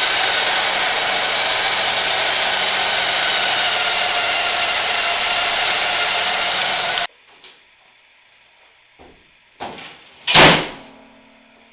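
1991 Buick LeSabre's 3800 V6 idling steadily on a replacement drive belt, with no ticking or clunking now that the bad belt is off. The engine is shut off about seven seconds in. A few light clicks and one loud thump follow.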